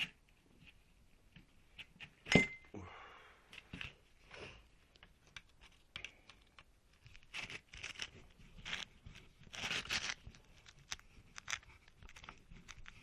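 Small metal parts and wire being handled: scattered clicks and rattles, one sharp metallic clink with a short ring about two and a half seconds in, and crinkling, scraping handling noise later on.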